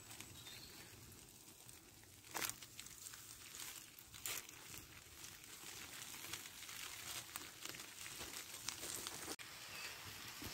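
Aluminium foil parcels of chicken kebabs crinkling as they are handled and turned on a campfire, with a few sharp crackles about two and a half and four seconds in. The chicken sizzles faintly inside the foil.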